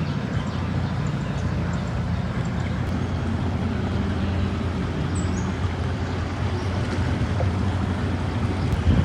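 A boat's engine running steadily at an even speed, with a low hum under a broad rush of wind and water. There is a brief thump near the end.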